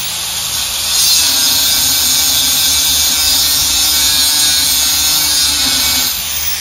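Handheld angle grinder working against the steel frame of an International Scout II chassis, a loud steady grind stripping the frame ahead of sandblasting. It grows louder about a second in and cuts out near the end.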